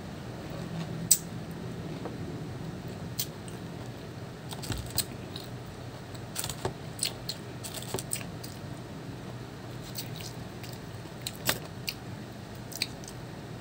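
Pomelo being pulled apart by hand and eaten: scattered small clicks and crackles of the pulp and pith tearing, with mouth sounds of chewing. The sharpest click comes about a second in, and there is a cluster of them around the middle. A steady low hum runs underneath.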